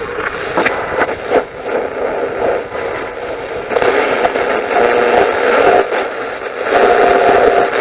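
Viscount AM table radio hissing with static and interference, with short steady tones coming and going through the noise. The owner blames the interference on 5G.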